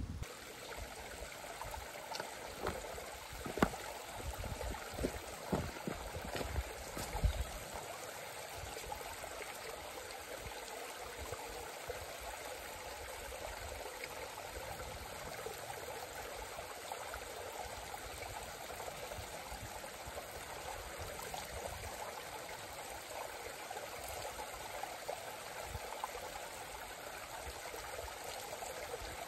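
A small mountain stream trickling over rocks, steady throughout. A few short knocks stand out over the first several seconds.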